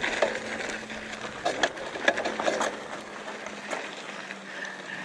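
Mountain bike rolling over a gravel trail: a steady crunch of tyres on loose stones, with several short knocks and rattles from the bike going over bumps.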